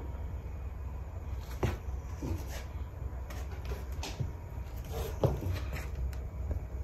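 About five soft knocks and clicks at uneven intervals, the loudest about a second and a half in and near five seconds in, over a steady low hum.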